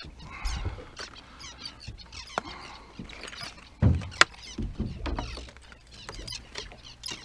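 Birds calling repeatedly in short chirps and honks around a fishing boat, with a few sharp knocks of gear being handled on deck about halfway through.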